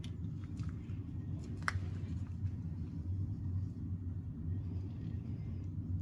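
Steady low background rumble with a few faint small clicks, one sharper than the rest about a second and a half in, as the plastic extension straw is pushed into the spray nozzle of a WD-40 can.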